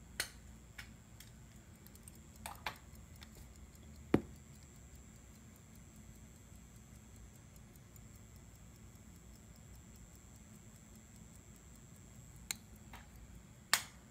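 Hamilton 975 pocket watch ticking faintly, with a few sharp clicks from the watch being handled, the loudest about four seconds in and another near the end.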